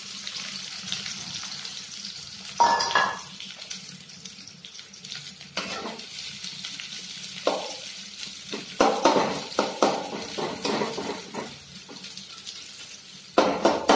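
Freshly added sliced onions sizzling in hot oil in a kadhai, with a metal spatula scraping and knocking against the pan as they are stirred. The sizzle is a steady hiss; the spatula strokes come in several clusters, loudest about three seconds in and near the end.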